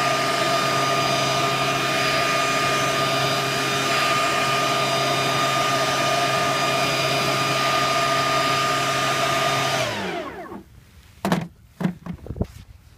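Stihl BGA 85 battery-powered blower running at a steady high whine, then switched off about ten seconds in and spinning down to a stop. A few sharp knocks follow near the end.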